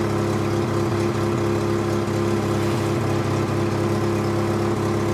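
An engine running steadily at a constant speed, with an unchanging hum.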